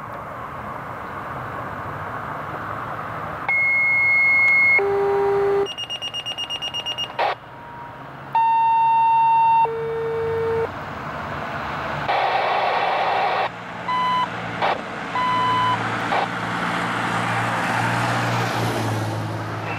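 Fire dispatch alert tones over a scanner radio: a steady high tone followed by a lower one, twice, with a rapid warbling tone between the pairs and short beeps later. A low traffic or engine rumble grows under them near the end.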